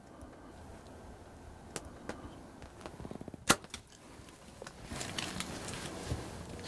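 A bow being shot at a deer: a few quick ticks, then a single sharp crack of the release and arrow hit about three and a half seconds in. Rustling follows near the end.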